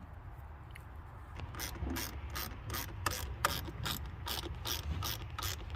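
Hand ratchet wrench clicking as a bolt is tightened, about three sharp clicks a second, starting about a second and a half in.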